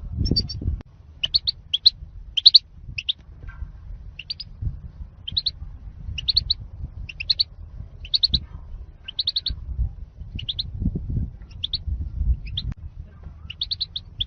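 European goldfinch song: short, bright twittering chirps in quick groups, repeating about twice a second, over a low background rumble.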